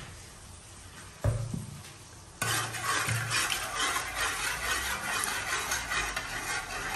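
A single knock about a second in, then from about two and a half seconds in a metal spoon stirring syrup and water in a metal cooking pot, rapidly scraping and clinking against the pot.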